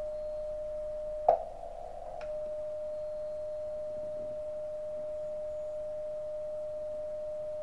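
Transceiver's transmit sidetone, a steady pure tone of about 600 Hz while the radio is keyed to tune into the antenna tuner and dummy load. About a second in it stops with a click, leaving a second of narrow hiss, then comes back with a click and holds steady.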